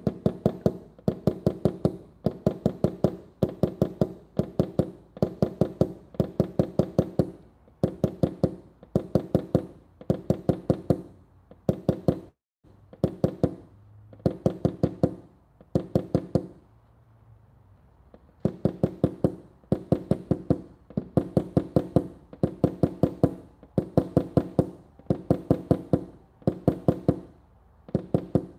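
Hammer tapping a tap-down tool against a metal dent-repair panel in quick bursts of about five light strikes, roughly one burst a second, each strike ringing briefly off the panel. This is knocking down the high spots left after glue pulling. The tapping pauses for about two seconds two-thirds of the way through.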